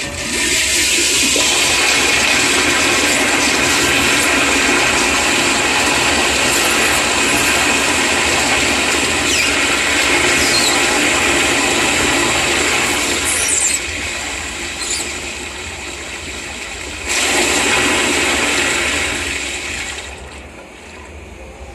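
Toilet flushing: a loud rush of water pouring into the bowl that eases after about 14 seconds, surges again a few seconds later, then dies away near the end.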